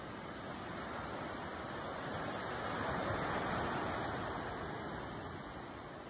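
Small sea waves breaking and washing up over sand and rocks. The rush of surf swells to its loudest about halfway through, then eases.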